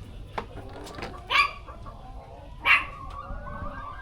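Hens calling in a chicken house: two short, loud calls about a second and a half apart, with softer clucking between them and a light click near the start.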